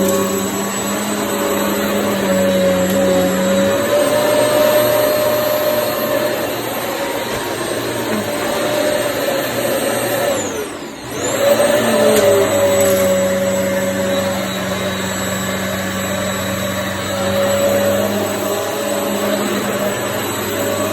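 Hoover EliteSwivel upright vacuum cleaner running steadily with a motor whine. About halfway through, the motor's pitch and loudness sag for a moment, then it speeds back up and runs on.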